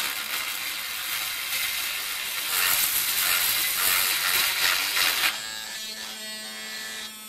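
Drill Master mini rotary tool's abrasive cut-off disc grinding against a steel nail for about five seconds, barely denting it. Then the disc comes off the nail and the tool runs free with a steady motor whine for a couple of seconds before it stops.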